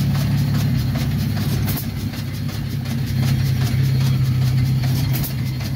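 An engine running steadily at idle, a low drone with fine rapid ticking over it.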